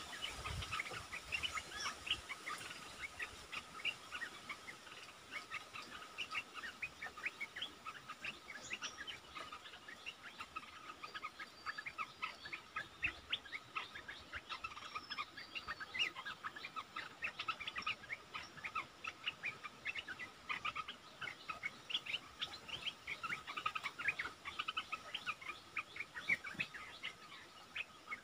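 Olive-winged bulbuls calling: a busy, unbroken run of short, rapid chattering notes, many a second.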